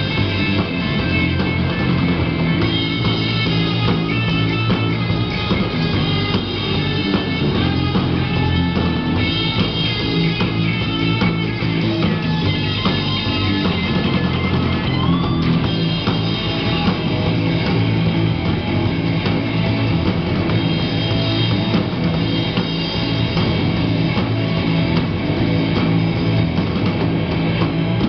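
Live rock band playing an instrumental passage: electric guitars through amplifiers over a drum kit, loud and continuous.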